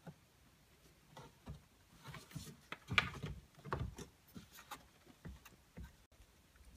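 Scattered light plastic clicks, taps and rustles of hands working a car's instrument gauge cluster and its wiring loose from the dashboard, loudest about three to four seconds in.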